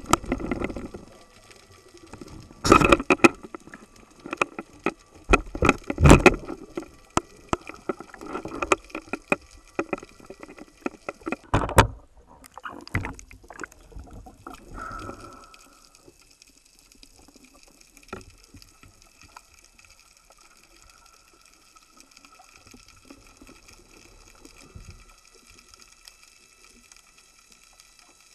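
Water sloshing and splashing with irregular knocks for about the first sixteen seconds, then much quieter, with only a faint steady whine.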